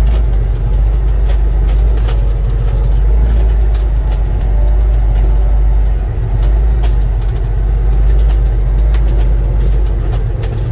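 2010 Kenworth T660 sleeper truck's diesel engine running steadily as the truck drives slowly, heard from inside the cab as a deep, steady drone. Scattered light clicks and rattles sound over it.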